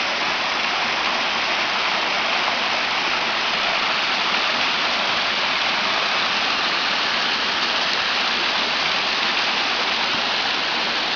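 Small waterfall splashing and rushing: a steady, even rush of falling water.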